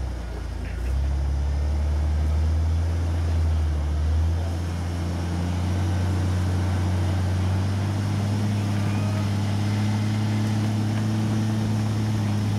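Jeep Wrangler's engine running under load as it crawls up a rock ledge, its note rising about four seconds in and then holding steady.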